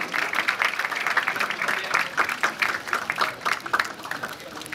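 Crowd of spectators applauding, the clapping thinning out near the end.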